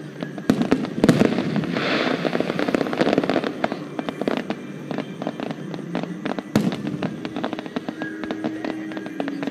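Fireworks going off: a dense run of crackling pops, with louder bangs about half a second and a second in and again past six seconds, and a hissing spray around two seconds in.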